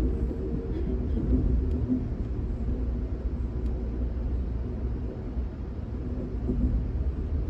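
Steady low rumble of a moving passenger train heard from inside the coach as it rolls along the rails close past a standing container train, with a few faint ticks.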